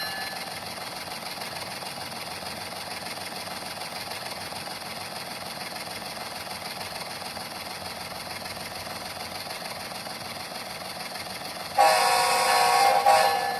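Sound-equipped HO-scale ES44AC model locomotive playing its diesel engine sound through small ZIMO speakers, with one loud horn blast about twelve seconds in that lasts under two seconds. The playback crackles, especially on the horn: faulty speaker wiring, with only one speaker working.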